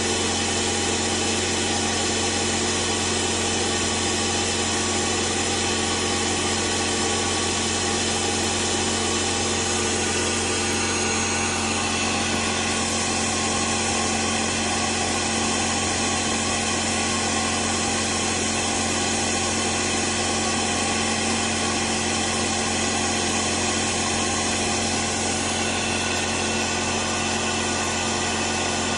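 Laguna Smartshop J8 CNC machine running, its air-cooled spindle and servo drives making a steady hum with several constant whining tones.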